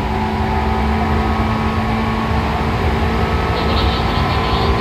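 Seibu 2000 series electric train running at a steady speed, heard from on board: a steady traction motor and gear hum over the rumble of wheels on rail.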